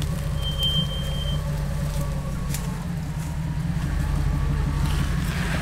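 Off-road 4x4 vehicle's engine running steadily at low revs, a constant low rumble. A short, thin high-pitched tone sounds briefly about half a second in.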